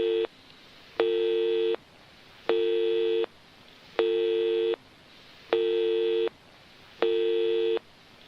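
Telephone busy signal: a steady two-tone beep, on and off about every second and a half, five full beeps after the tail of one at the start. It has the thin sound of a phone line.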